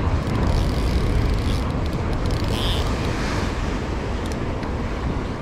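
Wind rumbling on the microphone over ocean surf against a rocky shoreline, a steady noise, with a few faint clicks as a spinning reel is cranked against a hooked fish.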